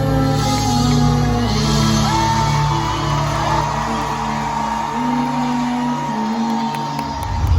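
Live concert music: slow, sustained chords with a long held high note, with crowd shouts and whoops over it.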